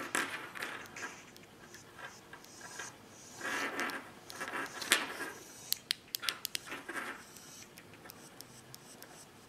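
Handling noise from fiddling with a small Bluetooth earbud headset: scratchy scrapes and rustles, with a run of small sharp clicks in the middle.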